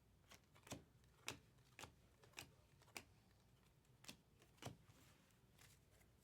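Faint, soft flicks of trading cards being turned over one after another, about every half second.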